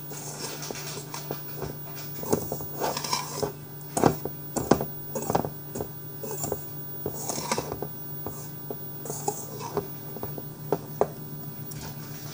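Wire whisk beating a soft banana mixture in an enamel bowl, with irregular clinks and scrapes of the wires against the bowl's side.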